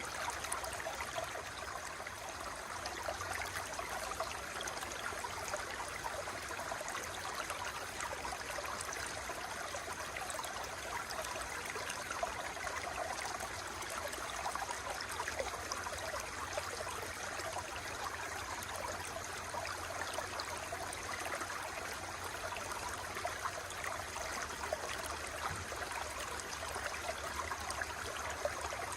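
Water running steadily, with an even, unbroken flow.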